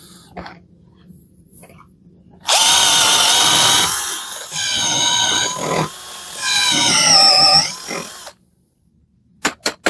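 Parkside PBSA 12 D4 12 V cordless drill/driver drilling a hole, its motor whining for about six seconds with the pitch rising and falling as the trigger is eased, then stopping abruptly. A few sharp clicks follow near the end.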